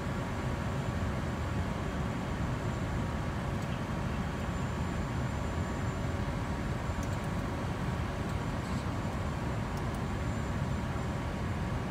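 Steady rush of airflow and engine noise inside an airliner's flight deck during the descent, with a faint steady high whine and a few faint clicks in the second half.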